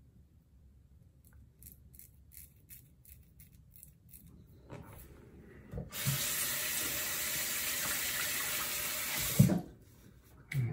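Bathroom sink tap running steadily for about three and a half seconds, starting about six seconds in, as water is scooped to rinse the face during a shave. The water stops with a sharp knock, followed by a few low wet splashes of water against the face.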